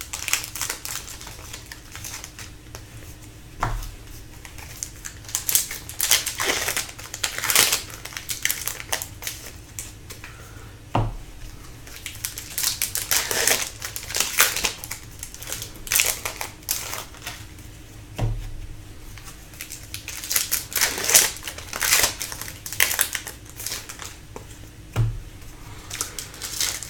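Foil wrappers of hockey card packs crinkling and tearing as the packs are ripped open and the cards are handled, in irregular rustling bursts. A sharp knock comes four times, about every seven seconds.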